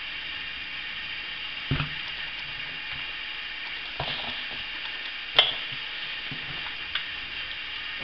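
Steady hiss of FM static from the little speaker of an SG-902 toy-car radio, tuned to 87.5 MHz with no station coming in. A few light knocks of the plastic toy car being handled and set down on a table, with one sharp click about two-thirds of the way through as the loudest sound.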